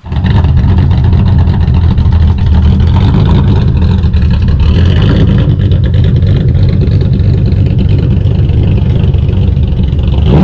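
A car engine running loudly and steadily, starting abruptly.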